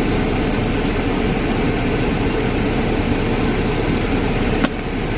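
Car air conditioning blowing on max with the engine running: a steady rushing noise inside the cabin. A single sharp click comes about four and a half seconds in.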